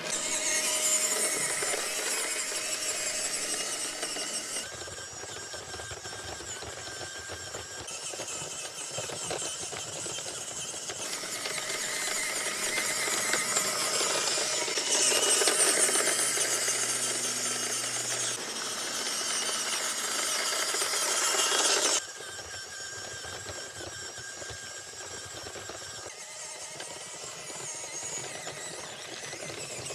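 Small electric RC crawler's motor and gearbox whining high-pitched as the truck drives. The sound drops abruptly about five seconds in, is louder in the middle, then drops abruptly again a little after twenty seconds.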